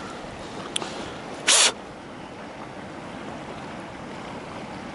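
River water running steadily past the bank, with one short, sharp hiss about a second and a half in.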